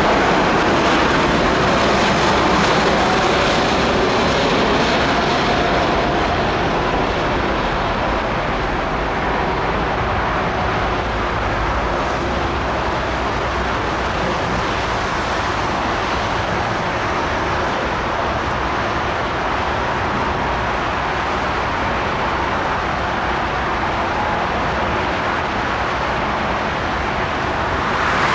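Jet engines of a landing Airbus A330-300: a loud, steady rushing roar with a faint whine over it in the first few seconds, easing off a little after that.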